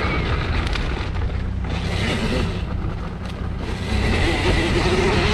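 Husqvarna EE-5 electric kids' dirt bike riding over a dirt trail, heard mostly as wind noise on the microphone with tyre and trail noise underneath, easing briefly about three seconds in.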